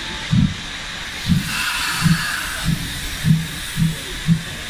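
Steam locomotive No. 262 getting under way: exhaust chuffs coming ever faster, from about one a second to about two a second, over a steady hiss of steam that swells a second or two in.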